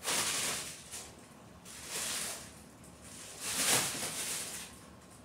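Crinkly nylon cat play tunnel rustling as a cat scrambles about inside it, in three bursts, the loudest a little past the middle.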